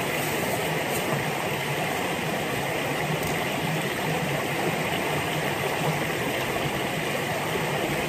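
Steady rush of a river flowing through a forest, with now and then a faint light tick.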